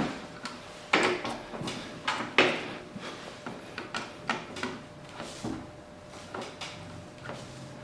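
Irregular knocks and clatter of parts being handled, the loudest about a second in and again near two and a half seconds, with lighter taps in between.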